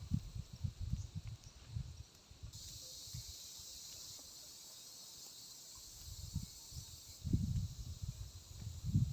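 Strong wind buffeting the microphone in irregular low gusts, easing in the middle and picking up again near the end. While the gusts ease, a steady high hiss starts, holds for several seconds and then cuts off.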